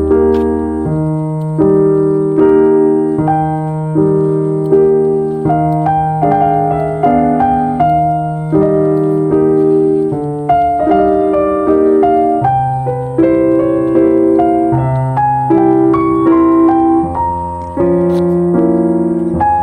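Background music: a slow, gentle piano piece with chords struck at an even pace.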